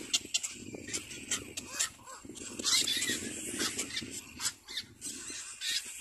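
Little black cormorants calling at the nest: rapid clicking and rasping calls, with a louder call about halfway through.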